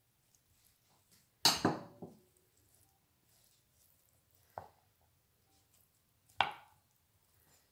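Bowls and dishes knocking on a tabletop: a loud clatter with a brief ring about a second and a half in, a small click near the middle, and another sharp knock near the end.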